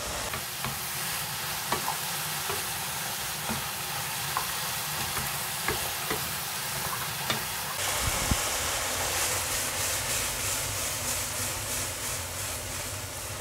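Oyster mushrooms, carrot and onion sizzling steadily in a frying pan over high heat while their juices cook off, stirred with a wooden spatula that gives scattered short scrapes and taps against the pan.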